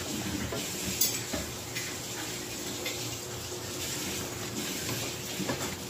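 Thick butter chicken sauce simmering and bubbling in a steel pot while a wooden spoon stirs it, with a sharp knock of the spoon against the pot about a second in and a few lighter clicks.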